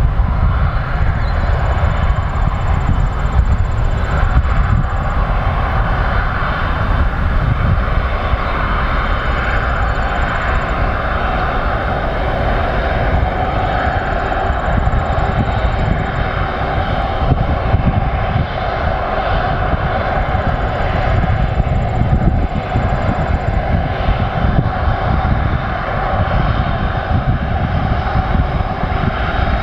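Airbus A321neo jet airliner's twin turbofan engines at take-off thrust: a steady, loud jet noise with a deep rumble as it rolls down the runway, lifts off and climbs away.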